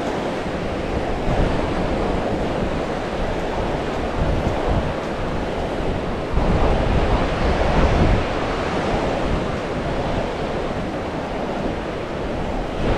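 Sea surf washing onto a beach, a steady rushing hiss, with wind rumbling on the microphone, loudest about six to eight seconds in.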